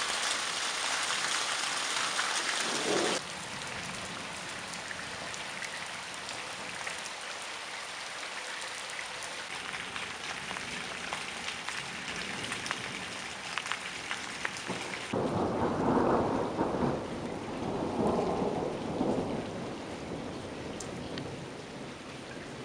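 Steady rain falling on wet ground and puddles, a continuous hiss of drops. About two-thirds of the way through, thunder rumbles in two loud swells lasting a few seconds.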